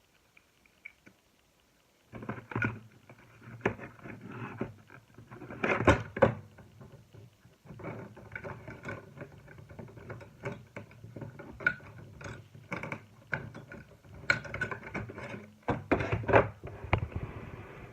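Slime being squished and pressed by hand, making irregular wet clicks, pops and crackles; it starts about two seconds in after a near-silent pause.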